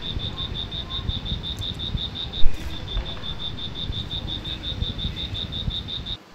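A high-pitched chirping call, repeated evenly about five or six times a second with a short break in the middle, over a low rumble. A single thump about two and a half seconds in.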